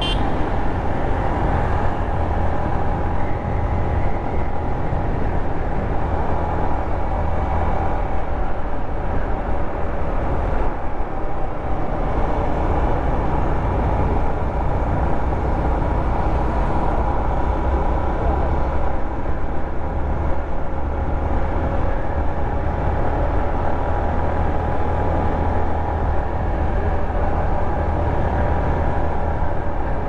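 Yamaha MT-15's 155 cc single-cylinder engine running steadily as the bike cruises in fifth gear, with no big changes in revs.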